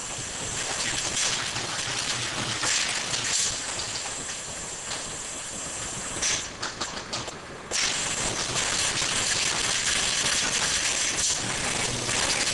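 Bottling line machinery running: a steady hiss with light clatter from the conveyors and feed screws. It drops away about six seconds in, leaving a few clicks, and returns about a second and a half later.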